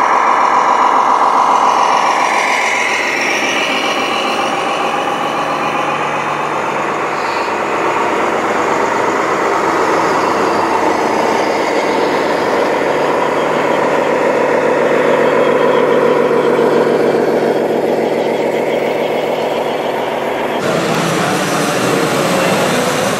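Radio-controlled model trucks driving, their engine sound simulation playing a truck engine that slowly rises and falls in pitch. Near the end the sound changes abruptly to a different, noisier engine sound.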